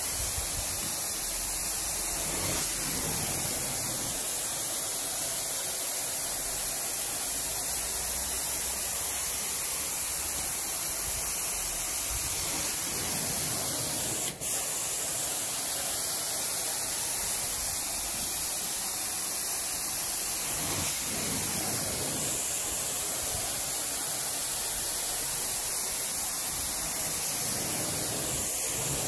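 Carpet-cleaning extraction wand working the carpet: its spray and vacuum suction make a steady, loud hiss. The hiss drops out for an instant about halfway through.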